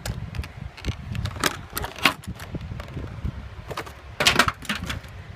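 Handling noise from a die-cast toy car and a clear plastic display case: sharp clicks, taps and crinkles of plastic and metal, with the busiest cluster of rattling clicks about four seconds in, over a low rumble of hands moving against the phone's microphone.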